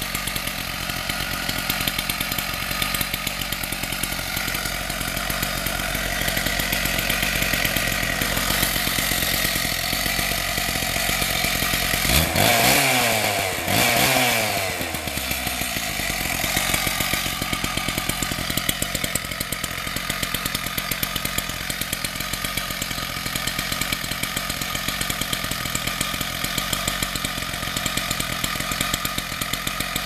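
Husqvarna K760 power cutter's two-stroke engine running steadily. About twelve seconds in it is revved up once, and the pitch falls back to the steady running speed over the next three seconds.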